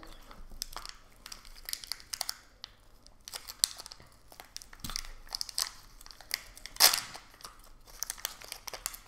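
Small plastic wrapper from a Kinder Surprise toy capsule being crinkled and torn open by hand: a run of short, irregular crackles, the loudest about two-thirds of the way in.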